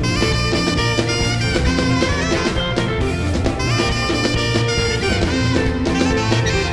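Gospel praise-and-worship band music playing steadily, with no recognisable words.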